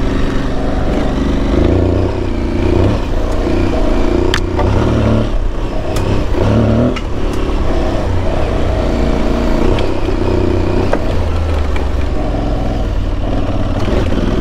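Aprilia Tuareg 660's parallel-twin engine running at low trail speed, the throttle opening and closing so its pitch steps up and down every second or two. A few sharp knocks come about four, six and seven seconds in.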